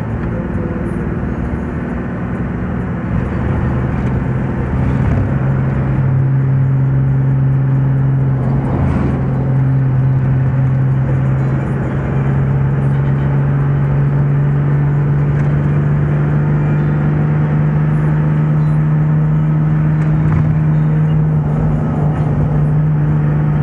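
Large vehicle's engine droning steadily inside the cab while driving on a paved road, its pitch rising slowly as it gathers speed.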